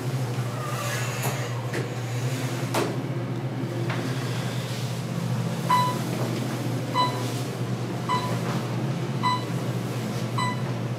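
Otis traction elevator car: a few knocks as the doors close, then the car travels with a steady low hum and a short, high beep about every second, a floor-passing tone as it passes each floor.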